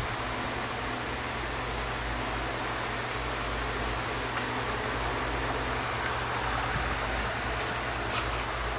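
Steady mechanical hum and hiss, with faint high ticks two or three times a second.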